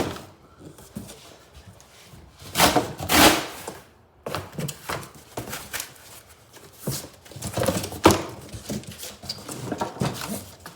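Cardboard packaging being handled: irregular rustling and scraping with a few thumps as parts of a new push lawnmower are pulled from the box.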